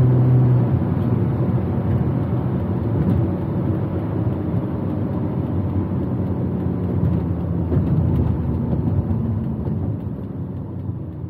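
Ferrari 400i's V12 heard from inside the cabin while driving. A steady engine drone drops away about a second in, leaving a lower engine sound and road noise that fade toward the end.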